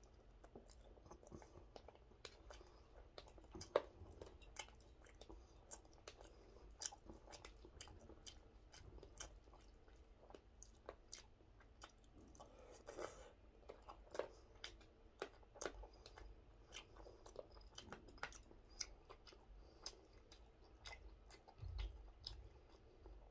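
A man chewing a mouthful of food close to the microphone: faint, irregular wet smacks and clicks of the mouth, with one louder click about four seconds in.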